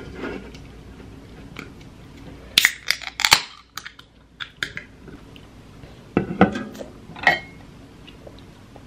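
An aluminium sparkling water can being opened: a sharp crack of the pull tab and a short fizz about two and a half seconds in. A few seconds later come several knocks and clinks of the can being set down on a wooden table and chopsticks being handled.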